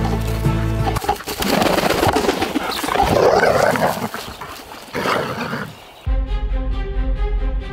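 Background music, then from about a second in two dogs in a brief, loud, rough scuffle: a Belgian Malinois rushing at and correcting a young Staffordshire cross. The scuffle ends abruptly about six seconds in as the music returns.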